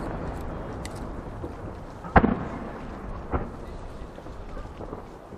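The rolling echo of a large firework shell burst dies away. About two seconds in comes a sharp bang as the next 10-inch shell is fired from its mortar, and a weaker bang follows about a second later.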